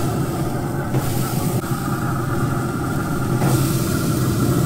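Steady hum of a running motor, with even overtones and a light hiss over it.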